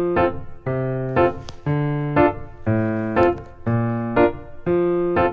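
Background piano music, with notes struck about twice a second and left to ring.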